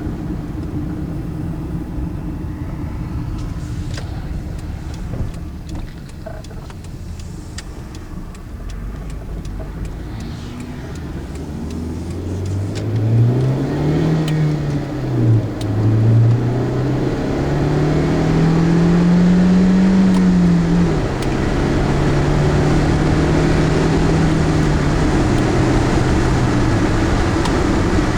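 2001 Hyundai Elantra's 2.0-litre four-cylinder engine heard from inside the car, with steady road rumble at first, then hard acceleration through the gears of its five-speed manual. The revs climb, drop at a shift about 15 seconds in, climb higher, drop at a second shift about 21 seconds in, and then hold at a steady cruise.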